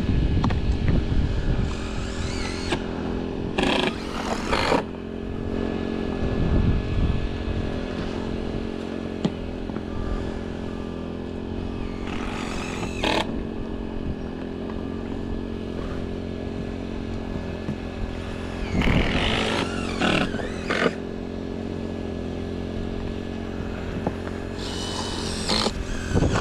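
Leister automatic hot-air roofing welder running steadily as it welds a TPO membrane seam, its blower and drive giving an even motor hum. A few brief clatters break in at intervals.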